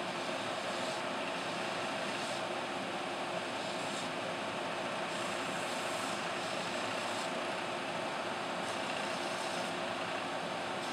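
Shoe-repair belt sander running steadily while the heel tip of a woman's shoe is ground down on its abrasive belt to trim a new pin lift flush with the heel. A higher grinding hiss comes and goes every second or two.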